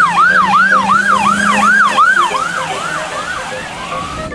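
Police car siren in yelp mode: a fast wail that rises and drops sharply about three times a second, fading near the end.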